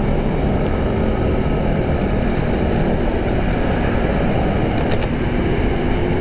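Riding on a motor scooter: wind rushing over the microphone with the scooter's small engine humming steadily underneath.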